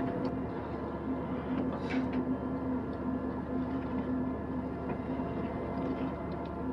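A ship's engine and deck machinery running on board with a steady drone and a constant hum, with light metallic clicks and a brief clank about two seconds in.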